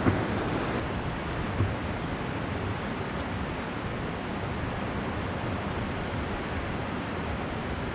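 Steady rushing noise of wind and river water, with two brief low bumps near the start, about a second and a half apart.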